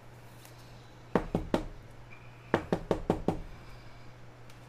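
Sharp knocks on a hard surface: three quick ones, then after about a second a faster run of five.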